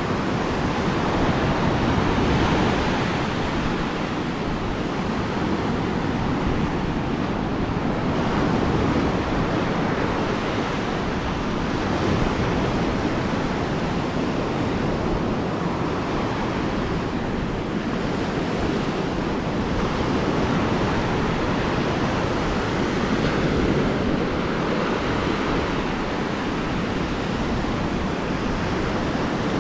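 Ocean surf washing onto a beach, a steady rush of breaking waves that swells and eases every few seconds, with some wind rumbling on the microphone.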